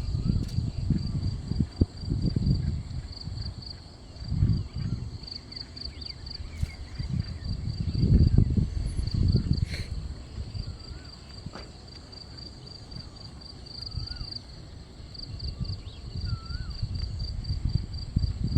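Insects chirping in a steady, evenly pulsing high trill, with irregular low rumbling bumps underneath.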